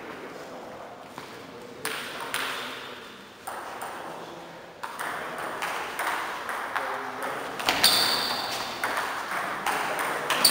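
Table tennis rally: the celluloid ball clicking back and forth off the rubber bats and the table top, with a few scattered taps at first and quick, regular hits in the second half, some with a high ringing ping.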